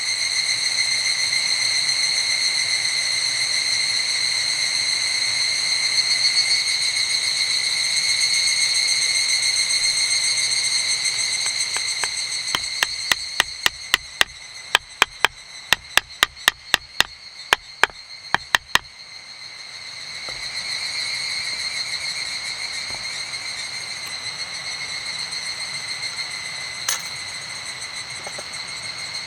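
Steady high insect drone with a run of about twenty sharp wooden knocks, about three a second, in the middle. The drone dips while the knocks sound, and one more knock comes near the end.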